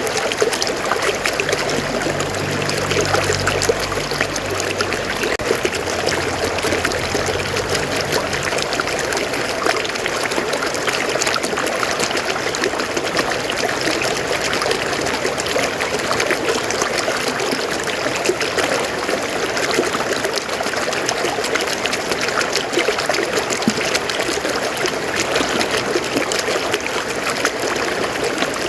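River water flowing over rocks, a steady rushing with trickling and splashing. A faint low hum sits under it for the first several seconds.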